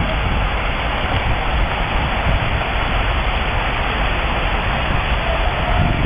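Steady rushing of a shallow river running over a stony bed.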